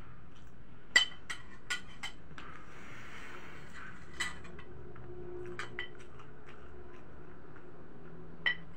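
Spoon and fork clinking and scraping against a plate while eating. There is a sharp clink about a second in, several lighter clicks over the next few seconds, and another clink near the end.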